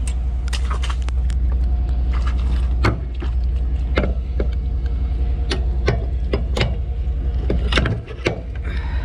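Pickup truck running on the road, a steady low engine drone, with frequent sharp clanks and rattles throughout; the drone briefly drops away about eight seconds in.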